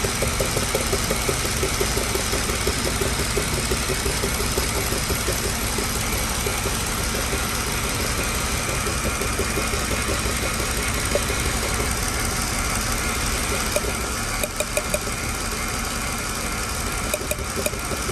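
Mercedes-Benz W211 engine idling steadily, with a few sharp clicks about two-thirds of the way through and again near the end. The car is in for a recurring engine misfire.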